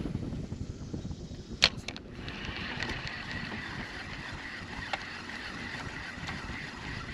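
Spinning fishing reel being cranked to retrieve a lure: a sharp click about a second and a half in, then a steady whirring, over wind noise on the microphone.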